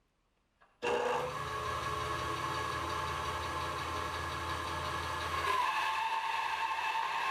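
Bandsaw running steadily, a low hum under several steady whining tones. About five and a half seconds in, the tone shifts and gets a little louder.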